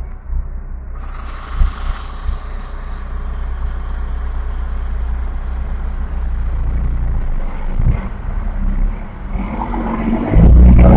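Western Star 4900EX dump truck's diesel engine idling with a low rumble, a brief hiss about a second in, then revving loudly near the end as the truck pulls away from the light.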